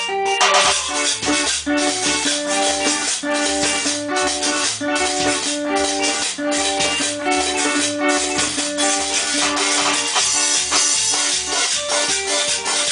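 Loud band music: a keyboard melody over a steady, fast percussion beat, played live through a PA mixing desk.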